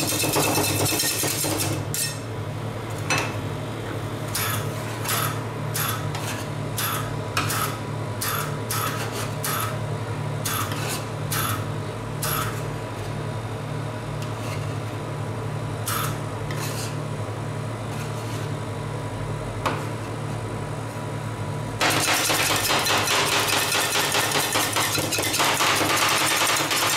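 Two metal spatulas chopping ice cream base on a frosted metal cold plate, with rapid chopping clicks at the start and again for the last five seconds. In between come slower, separate taps and scrapes, about two a second, as the mixture is spread out. A steady low hum runs under it all.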